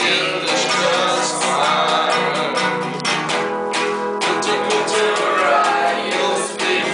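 Acoustic guitar being strummed to accompany a group of young people singing together.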